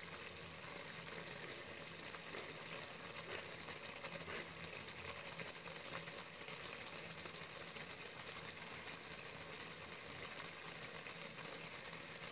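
Chicken masala frying in a pan, sizzling steadily.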